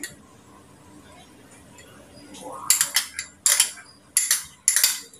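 Small bottle's screw cap being twisted, four short rasping turns in the second half.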